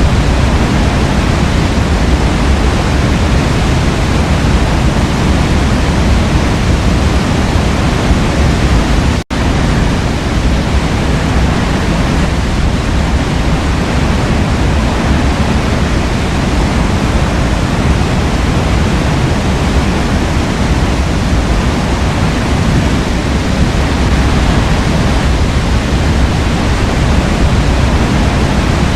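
Steady, loud rushing of a forest waterfall, an even wash of falling water with no change in it. It cuts out for a split second about nine seconds in and resumes at once.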